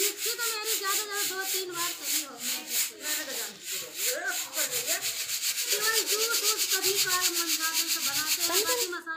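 Washed wheat grains scraping against a bamboo winnowing basket (soop) as hands rub and stir through them, a fast, even rhythm of rasping strokes, several a second. The grain is being cleaned by hand before winnowing.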